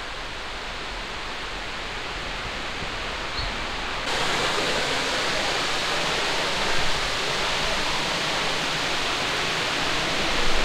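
Steady rushing of water cascading over rocks at a waterfall. It becomes louder and brighter after a cut about four seconds in.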